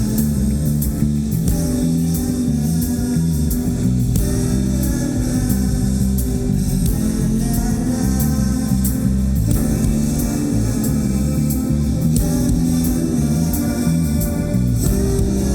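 Live rock band playing an instrumental passage: electric guitar and bass guitar over drums with steady cymbal strikes, and no clear vocals.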